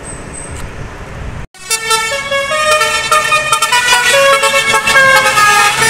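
A tour bus's Basuri telolet horn, a multi-tone musical horn, plays a tune of quick stepped notes. For the first second and a half there is only road noise, then a brief dropout before the horn.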